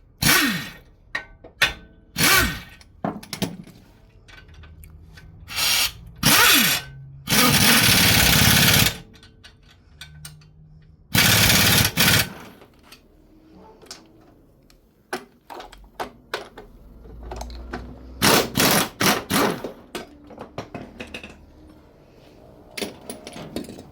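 A power tool run in repeated bursts, two of them lasting one to two seconds, among sharp knocks and clanks of tools on metal.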